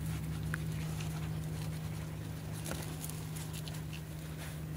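Light, scattered ticks and scrapes of a Shetland sheepdog puppy's paws on gravel and dry grass, over a steady low hum.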